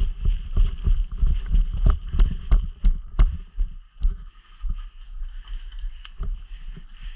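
Footsteps of a player running, thudding about three times a second with the camera jolting, slowing to sparser, quieter steps about four seconds in, with wind noise on the microphone.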